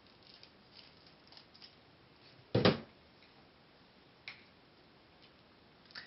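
Wire strippers working on the ends of thin connector wires: a few faint clicks, then one sharp knock a little over two and a half seconds in and a single small click a couple of seconds later.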